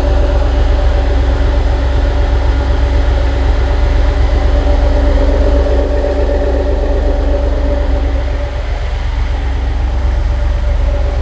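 1992 Cadillac DeVille's 4.9-litre V8 idling steadily with a smooth purr, running well after being hydrolocked by water in the intake.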